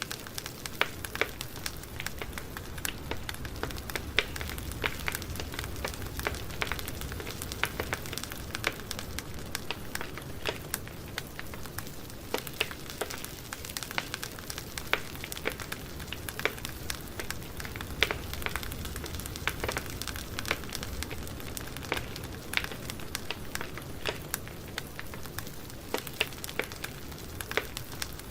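Campfire burning: wood crackling and popping in irregular sharp snaps over a steady hiss and low rumble of the flames.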